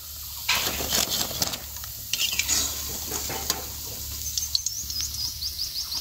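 Hot oil sizzling in a kadai as a batch of dal pakoras (lentil fritters) is fried and lifted out with a metal slotted spoon, with light clinks of the spoon against the pan. The sizzle starts about half a second in.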